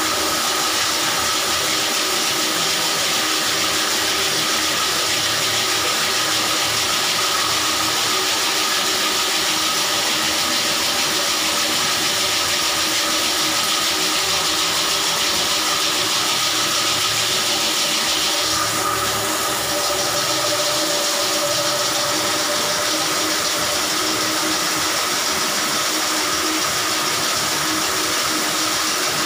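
Electric drum-type drain-cleaning machine running steadily, its motor turning the spiral cable down a blocked bathroom floor drain. A hissing rush over the motor drops away about two-thirds of the way through while the machine keeps running.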